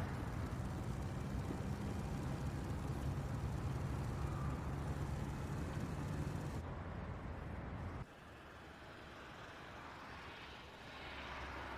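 Steady ambient background noise, a low rumble with hiss, that cuts abruptly to a quieter, duller ambience about eight seconds in.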